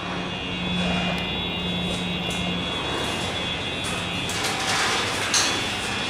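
A steady mechanical hum with several high, steady whining tones over it, with a short louder noisy sound about five seconds in.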